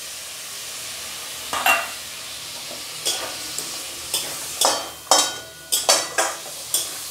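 Metal spatula stirring and scraping potato and capsicum in masala around a metal kadai on a gas flame, with a steady sizzle of frying underneath. The scrapes begin about a second and a half in and come quicker in the second half, a few with a brief metallic ring.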